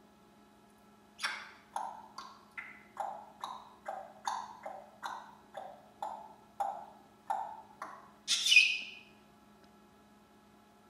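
African grey parrot making a quick run of short, sharp clicking calls, about two a second, each dropping in pitch. Near the end comes a single louder, harsher noisy burst.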